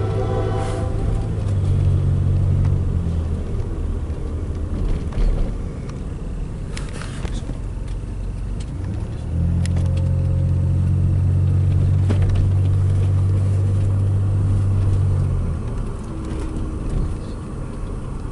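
Norfolk Southern intermodal freight train at a grade crossing: the diesel locomotive's horn chord cuts off under a second in, then a heavy low rumble from the passing train swells and eases, loudest in two long stretches.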